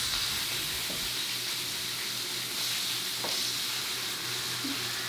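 Steak frying in a pan, a steady sizzle, with a low steady hum underneath and a couple of faint knocks.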